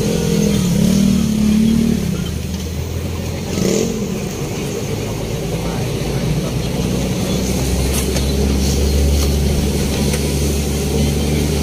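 Engine of a motor vehicle running steadily while driving, heard from inside the passenger cab, its low hum growing louder in the second half.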